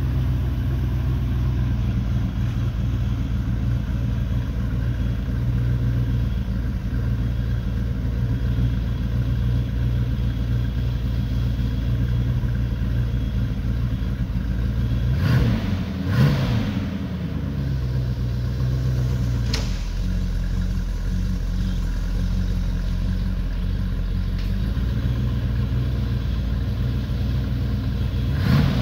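1966 Ford Mustang's engine idling steadily through its dual exhaust, blipped twice quickly on the throttle about halfway through and once more right at the end.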